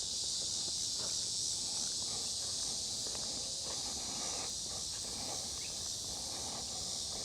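Steady, high-pitched insect chorus, with soft footsteps on a trail underneath.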